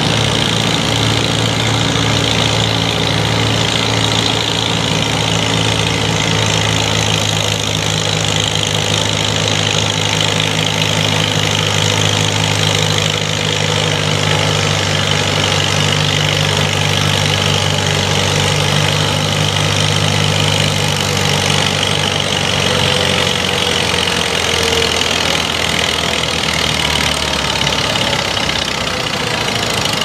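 Vintage farm tractor engine running steadily under load, pulling a weight-transfer sled down a dirt track. The engine note holds steady and then eases off near the end.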